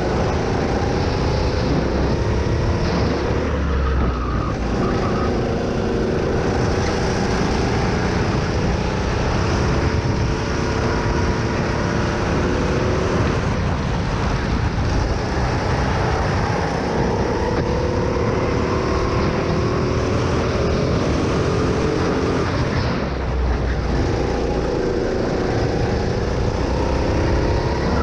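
Go-kart engine running hard under the driver, its pitch rising as it accelerates out of corners and dropping as it slows into them, several times over. A steady rushing noise of wind and tyres runs underneath.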